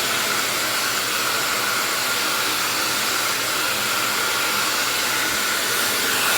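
An 1800-watt ionic hair dryer with an AC motor and a concentrator nozzle, blowing steadily: a constant rush of air over a steady high whine.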